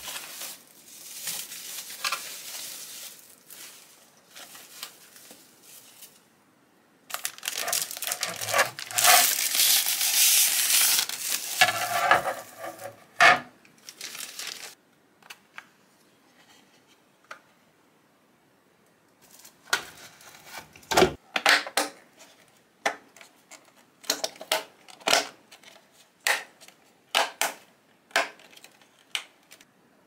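Plastic packaging bags crinkling and rustling as parts are unwrapped, briefly at first and then loudly for several seconds. After a quiet spell, a run of separate light clicks and knocks of hard plastic parts being handled.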